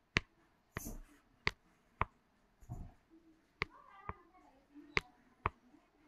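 Sharp single clicks of a computer mouse at irregular intervals, a little under one a second, as on-screen ink tools are picked and a pen stroke is drawn.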